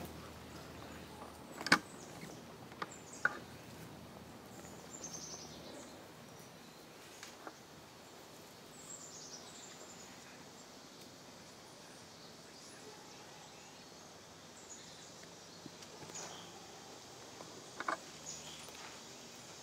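Quiet outdoor ambience with birds chirping now and then, broken by a few sharp clicks, the loudest about two seconds in.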